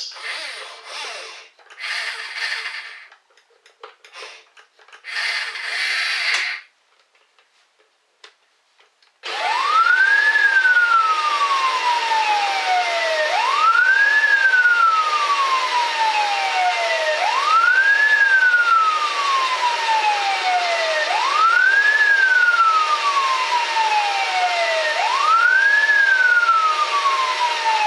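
Small electric gear motors of a toy RC ladder fire truck whirring in three short bursts as the ladder is lowered. About nine seconds in, the model's electronic siren starts: a wail that rises quickly and falls slowly, repeating about every four seconds over a steady tone.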